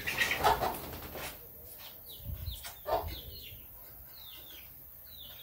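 Birds chirping: many short, falling chirps repeating through, with two louder, lower calls about half a second in and about three seconds in.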